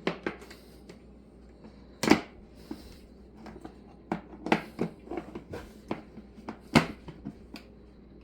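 Scattered clicks and knocks of a plastic portable record player being handled, the two sharpest knocks about two seconds in and near the end.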